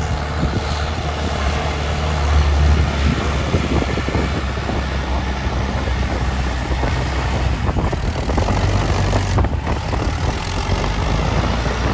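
Tractor diesel engine running steadily under load, pulling a disc harrow through dry, cloddy soil, with the harrow's discs scraping and scattered clicks and knocks of clods and stones.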